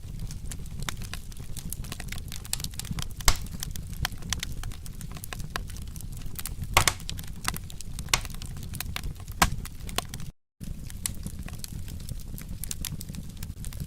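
Wood fire crackling steadily over a low rumble of flames, with a few sharper pops about three, seven, eight and nine and a half seconds in. The sound cuts out for a split second about ten and a half seconds in, then resumes.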